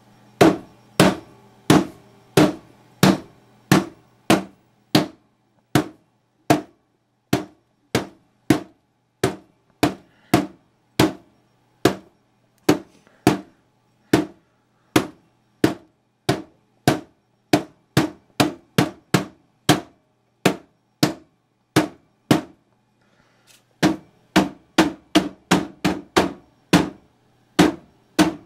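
Repeated hard knocks on the cabinet of a small CRT television, about two a second, with a short break near the end followed by quicker blows. The set is being smacked to jolt its blank, staticky picture back into working.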